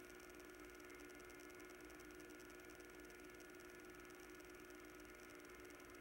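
Near silence: a faint, steady electrical hum under a light hiss.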